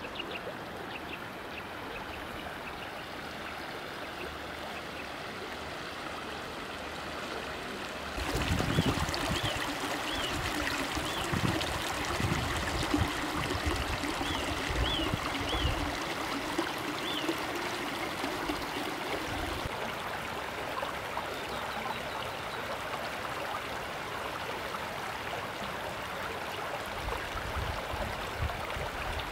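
Spring-fed mountain stream flowing steadily. About eight seconds in the water becomes louder and fuller, with a few low thuds, and small birds chirp in short runs of quick rising-and-falling notes.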